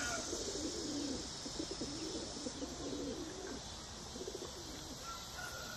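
A dove cooing, a run of low coos over the first few seconds that fade out about halfway through.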